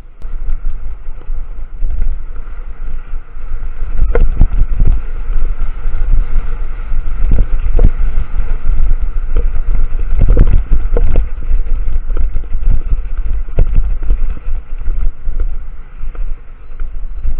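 Heavy wind rumble on the microphone of a camera riding on a moving motorbike, with several sharp knocks and rattles as it goes over bumps in the concrete road.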